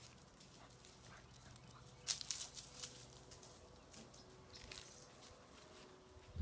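Young puppies scuffling and playing in a gravel bed, with scattered small clicks and crunches and a busier patch about two seconds in.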